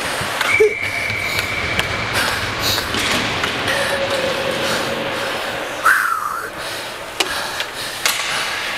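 Ice hockey play: a steady scraping haze with scattered sharp knocks of sticks and puck. A thin steady tone is heard for about two seconds near the start.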